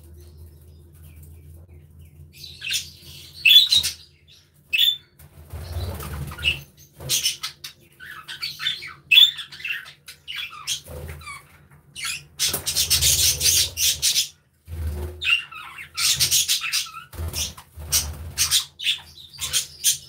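A flock of budgerigars chirping and chattering in short bursts that come and go, with longer noisy spells of busy calling and wing flutter, about halfway through and again a little later. A low steady hum runs underneath.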